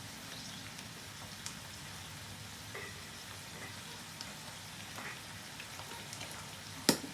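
Chicken and peppers sizzling in a frying pan: a steady hiss with light crackles, and one sharp knock near the end.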